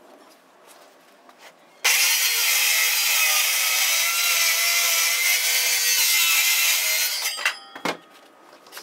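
Cordless circular saw starting about two seconds in and cutting through the table's MDF top in one steady pass of about five seconds, then stopping. A few sharp clicks follow.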